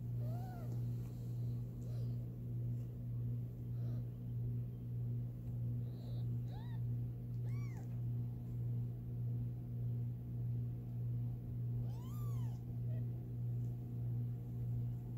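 Newborn kittens mewing: a few short, high cries that rise and fall in pitch, the loudest about twelve seconds in. Under them a steady low hum swells and fades a little more than once a second.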